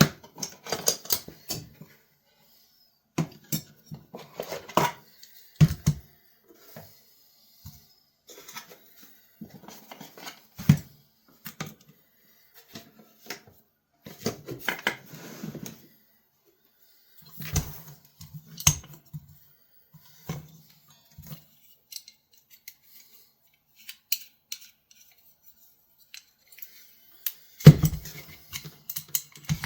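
Vintage pocket knife blades being sharpened by hand: scattered clusters of short metal scraping strokes and handling clicks, with pauses between them and a sharp knock near the end.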